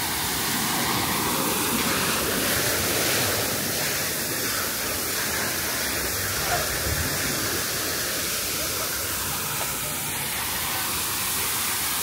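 Steady rush of water flowing down the water slide lanes and runout.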